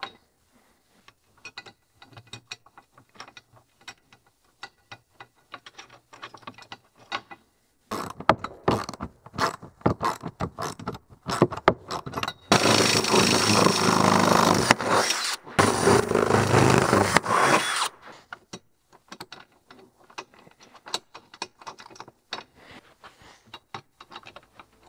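Ratchet wrench clicking as a bolt is tightened through a plastic tractor canopy roof. The clicks are faint and scattered at first, then come quick and dense, with a loud, continuous stretch of rattling lasting about five seconds in the middle.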